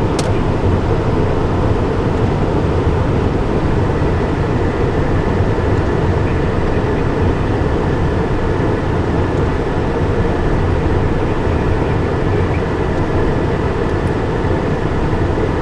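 Steady noise of a Cessna Citation Encore business jet in flight, heard from the cockpit: rushing air and the turbofan engines, with a faint steady whine. A short click sounds just after the start.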